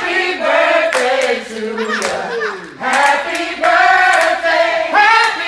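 A group of partygoers singing together in chorus, with hand clapping.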